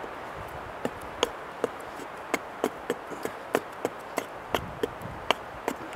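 A Gränsfors Bruks Small Forest Axe taking quick, light chopping strokes into a wooden spoon blank, about fifteen sharp cuts at two to three a second, flattening one side of the spoon.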